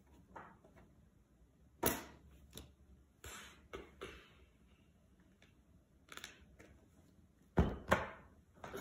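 Quiet handling noises from a small book: scattered sharp taps and short rustles, then two thumps near the end as it is put down on a couch cushion.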